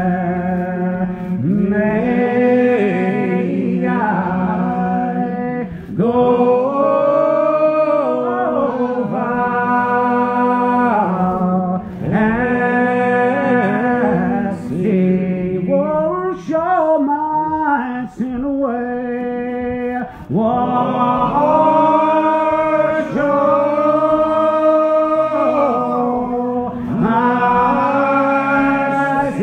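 Unaccompanied hymn singing by a group with men's voices prominent: slow phrases of long held notes, with short breaks between them.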